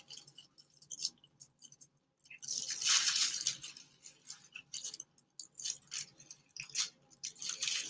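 Crinkling and crackling handling noise as a twist tie is worked off an air fryer's bundled power cord, in scattered short crackles with a denser stretch of crinkling a few seconds in.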